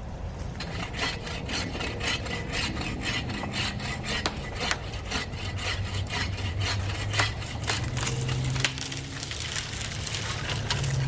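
Hand saw cutting through a tree branch, with rapid back-and-forth strokes at about three a second.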